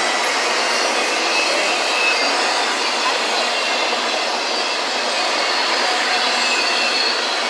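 Intermodal freight cars rolling past on steel rail: a loud, steady rushing of wheels on track, with faint high wheel squeals coming and going.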